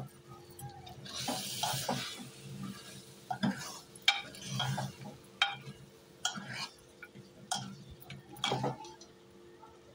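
A metal spoon stirring and scraping lung pieces and onion masala frying dry in an aluminium pressure cooker, with short scrapes and clinks against the pot about once a second. There is a brief sizzle of the frying masala about a second in.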